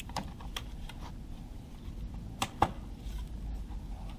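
A few short, light clicks and knocks of hard plastic parts being handled and pushed into place under a car, the loudest a pair about two and a half seconds in.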